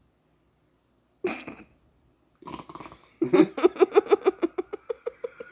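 A person's sudden snort, then a fit of rapid, high-pitched giggling laughter in quick repeated pulses that tails off near the end.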